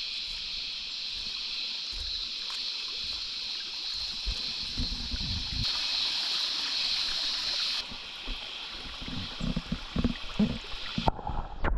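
Small stream trickling and running over rocks, a steady hiss, with a few low bumps in the last few seconds.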